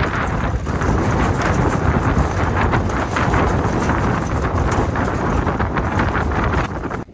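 Wind buffeting the microphone and road noise from an open-topped galvanised livestock trailer being towed behind a car, its metal panels rattling and knocking continually.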